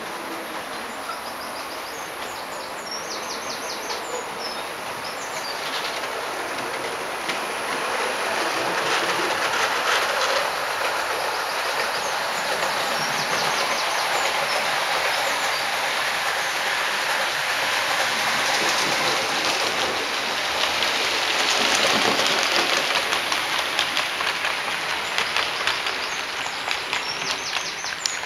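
Model railway trains running on the track: a steady rolling rumble of wheels and motor that grows louder as the trains pass close, with rapid rhythmic clicking of the wheels near the end.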